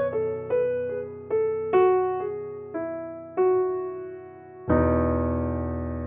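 Background piano music: a slow melody of single notes, each struck and left to fade, then a fuller chord struck near the end that rings on.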